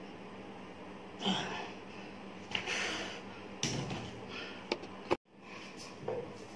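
A man breathing hard in short noisy exhales during and after a set of dumbbell presses, with a few sharp knocks and clicks as the dumbbells are handled and set down. The sound drops out for an instant just past the middle.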